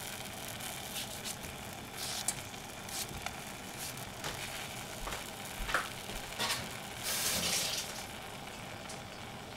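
Steady hiss of a gas stove burner, with scattered soft knocks and rustles as apricot slices are dropped into a stainless steel saucepan of cut strawberries. There is a longer, noisier stretch of handling near the end.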